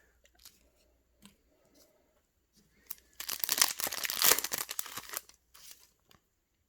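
A baseball card pack's foil wrapper being torn open: a loud burst of crinkly tearing about three seconds in, lasting about two seconds, with faint rustles and clicks of handling before and after.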